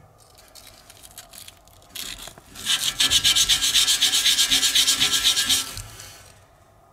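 Fine 800–900 grit wet-and-dry sandpaper rubbed by hand on a steel computer-case motherboard tray, scouring off rust spots. A few light scrapes come first, then about three seconds of quick back-and-forth strokes start about two and a half seconds in and die away near the end.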